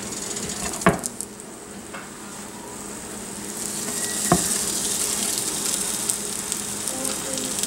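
Sandwiches sizzling as they are set into a hot, oiled cast-iron skillet, the sizzle growing louder about halfway through. Two light knocks are heard, about a second in and again past the middle.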